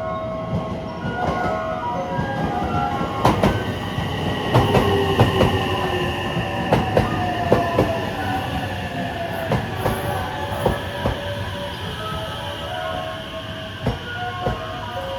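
A train running through the station, its wheels clacking over rail joints with a falling whine as it slows, and a thin high steady squeal over it.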